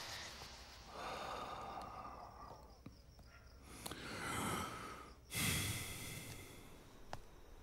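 A person breathing heavily and sighing, about three long breaths, the last one starting suddenly.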